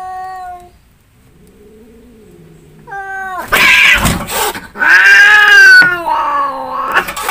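Two domestic cats fighting. A drawn-out warning yowl and a lower growling yowl come first. About three seconds in it breaks into loud screeching and caterwauling as they grapple, with a thump partway through.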